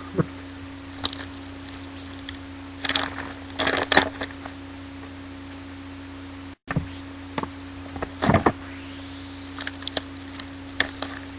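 Trading card packs and cards being handled: short scattered bursts of rustling and crinkling as wrappers are torn and cards slid and flipped, over a steady electrical hum. The sound drops out completely for a split second about six and a half seconds in.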